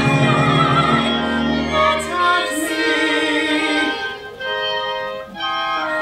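Live musical-theatre song: singers holding final notes with vibrato over instrumental accompaniment; about four seconds in the voices stop and steady held instrumental chords carry on.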